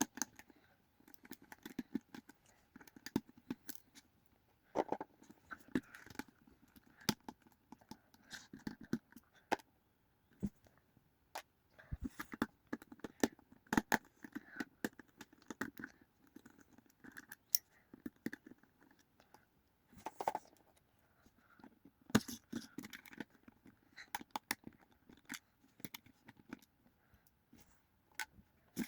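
Scattered small clicks and scratches of a precision screwdriver working screws out of a Nokia mobile phone's plastic housing, coming in irregular bursts with short quiet gaps.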